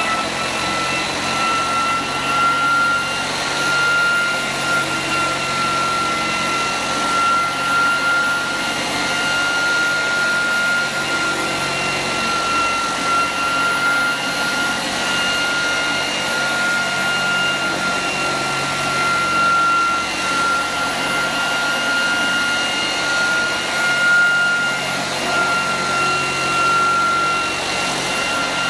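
Hiretech HTF-2 orbital floor sander running on a wooden board with its 25–30 kg sand-filled weight fitted and 60-grit paper: a steady high whine over a rough, even sanding hiss.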